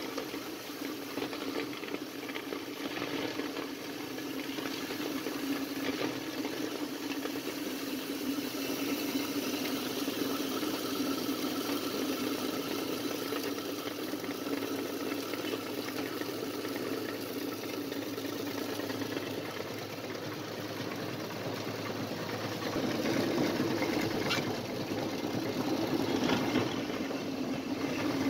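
Rock-salt grinding machine running with a steady mechanical drone, a little louder near the end.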